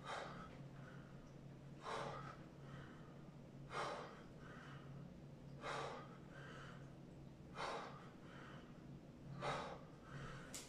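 A man breathing hard in time with bodyweight squats: a sharp breath out about every two seconds, with a softer breath in between each one.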